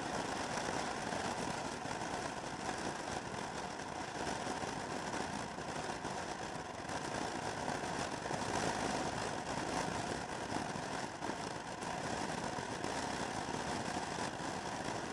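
Motor scooter cruising at road speed: a steady drone of engine and road noise, mixed with rushing air, that stays even throughout.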